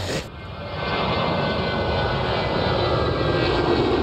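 Jet airliner taking off and climbing, a steady engine roar that builds over the first second.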